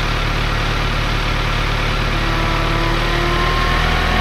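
Engine of a machine working beside the barn, idling steadily with a low hum. From about three seconds in, a faint tone creeps up in pitch.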